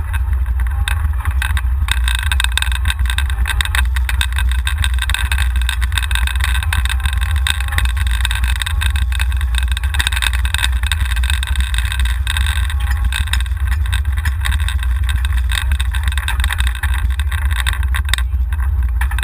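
Golf cart driving over asphalt, heard from a camera riding on it: a steady low rumble of wind on the microphone, with the cart's rattling and tyre noise on top.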